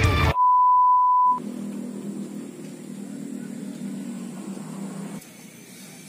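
A single steady high-pitched electronic beep lasting about a second, followed by a faint, steady low hum of background noise that drops lower near the end.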